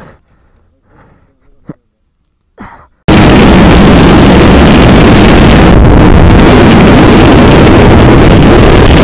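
Faint street sounds and a short click, then about three seconds in a sudden cut to loud, steady wind roar on the microphone of a camera on a moving motorcycle, with the bike's engine running underneath.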